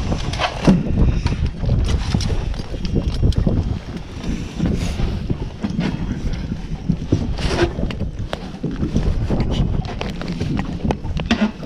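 Wind buffeting the microphone as an uneven low rumble, with scattered knocks and clatter of handling on a small boat.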